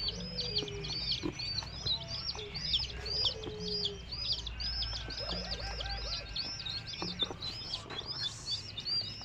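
Baby chicks peeping, a rapid, unbroken run of high chirps about three or four a second, over a low steady hum.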